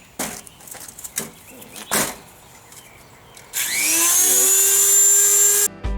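A few light knocks, then about three and a half seconds in a Dremel 3000 rotary tool switches on, its whine rising in pitch as it spins up and then holding steady and loud. It cuts off suddenly near the end.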